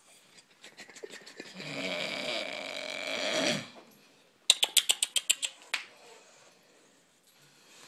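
A pet snoring: one long snore of about three seconds with a rattle at its start, followed about a second later by a quick run of about ten sharp clicks.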